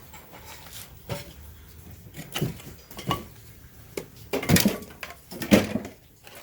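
Metal tools and engine parts clanking and knocking as they are handled, several separate sharp hits, the loudest two about four and a half and five and a half seconds in.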